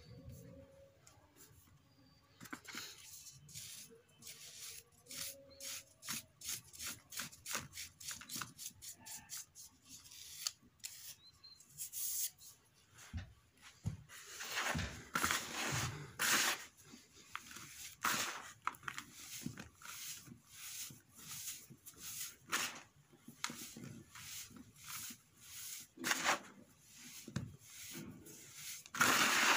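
Hands crumbling and squeezing dry, lumpy sand-and-cement mix in a plastic tub: a quick run of grainy crunching and rustling, quieter at first, with louder surges in the middle and again near the end.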